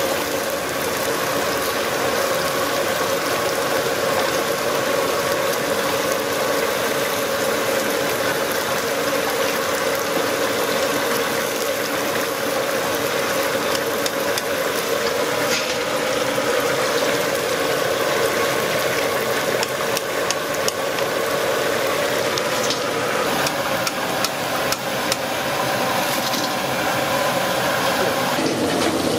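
Battered fish pieces deep-frying in a large wok of hot oil: a steady sizzle with a low hum underneath, and scattered clinks of the metal skimmer against the pan in the middle and later part.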